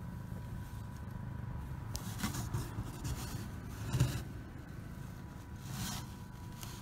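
Handling noise of a phone rubbing against a cardboard box: a few brief scrapes, the loudest about four seconds in, over a low steady rumble.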